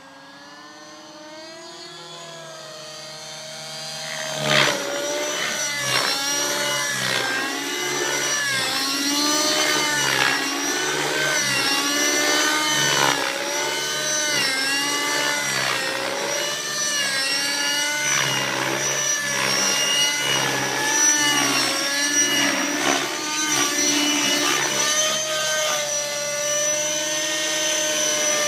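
Align T-Rex nitro RC helicopter flying low, its glow engine and rotors rising and falling in pitch about once a second as it is thrown around. It grows louder over the first four seconds as it comes close.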